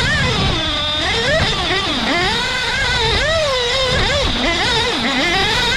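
1/8-scale off-road RC buggy lapping a dirt track, heard up close from a camera mounted on the car: its power note keeps rising and falling sharply with the throttle, over a rough rumble of tyres on dirt.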